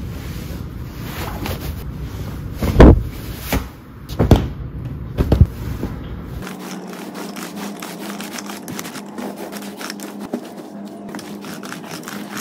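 Bedding handled right beside the microphone: a steady rustling hiss broken by three loud thumps as pillows and sheet are dropped and flapped onto the mattress. Then comes a lighter run of crackling, scraping rustles as the sheet is smoothed.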